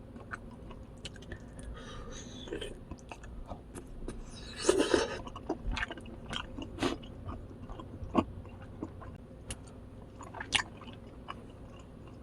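Close-miked eating of very crispy fried boneless chicken: wet chewing with many small crackles, and a loud crunching bite a little under five seconds in, with sharper crunches about seven and ten and a half seconds in.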